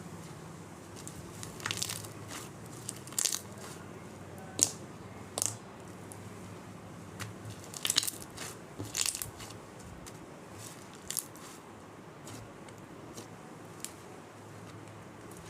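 Foam-mixed slime being squished and stretched by hand, giving irregular crackles and sharp pops that are busiest in the first ten seconds and sparser after.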